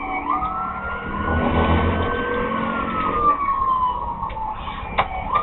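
Police siren on a slow wail: one long rise in pitch over about two seconds, then a slow fall. It plays over the low rumble of the cruiser's engine and tyres during a pursuit.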